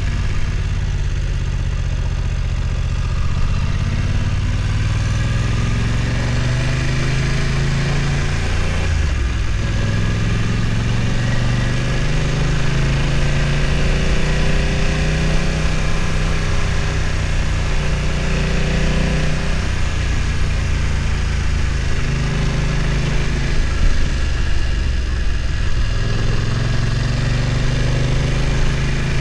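BMW F900 XR's parallel-twin engine pulling at moderate revs, its pitch rising and falling as the throttle opens and closes, with a short drop about nine seconds in.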